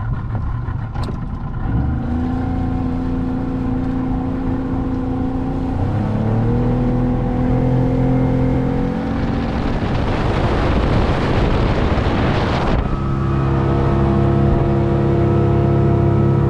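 Outboard motor of a Key West 1720 center-console boat running under way, its pitch stepping up about two seconds in and again about six seconds in as the throttle opens. A loud hiss swells past the middle and cuts off suddenly, after which the engine runs on steadily at a higher pitch.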